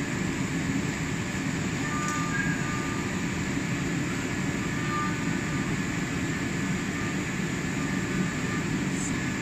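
Steady hum of running machine-shop machinery, with a few faint short metallic clinks from a wrench working the machine vise.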